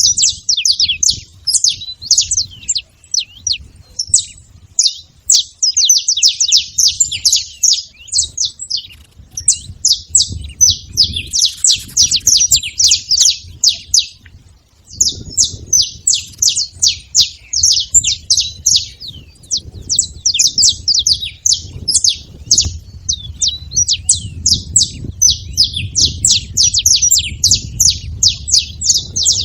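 Saffron finch singing in long fast runs of sharp chirping notes, with a brief pause about halfway through.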